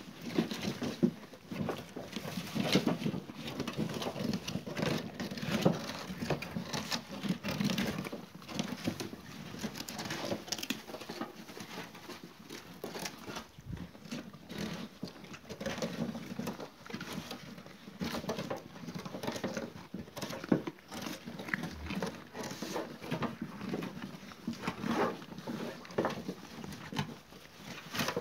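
Tsigai sheep eating dry feed from a trough: a steady, irregular patter of crunching and chewing, with pieces of feed rattling as they nose through it.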